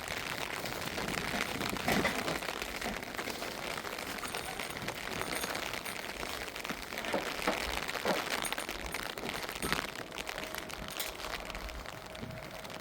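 Steady heavy rain, a dense even hiss, with a few scattered knocks and taps.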